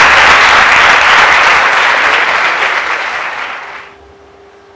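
Audience applause, loud at first, dying away about four seconds in.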